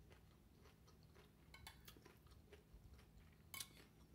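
Faint clicks of a metal fork against a plate and a glass bowl, a few scattered taps with the sharpest about three and a half seconds in.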